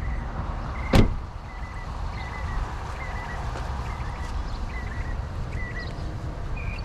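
A steady low vehicle rumble, with one sharp knock about a second in and short faint high chirps recurring through it.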